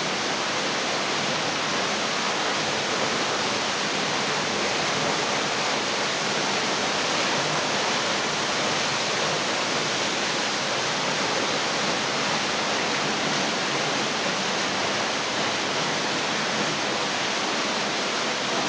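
Waterfall pouring steadily close by: an unbroken rush of falling water.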